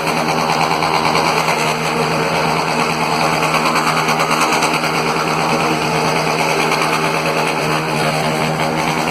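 Small engine running loudly at a steady high speed: a fast, even buzz with rapid exhaust pulses and no revving.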